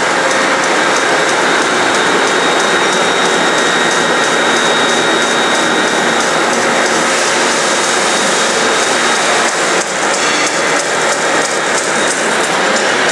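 Vertical bandsaw running, its carbide grit-edge blade cutting through a graphite block as the powered table feeds it, together with the steady rush of dust extraction. A loud, even hiss with a thin high whine over it, turning slightly uneven from about ten seconds in.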